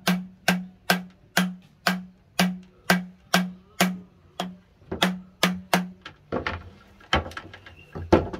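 Hand-pumped PVC-tube air pump: the inner pipe is worked in and out like a plunger, each stroke giving a sharp pop with a short low hum, about two a second at slightly uneven spacing. From about six seconds in, the pops give way to irregular knocks of plastic pipe being handled.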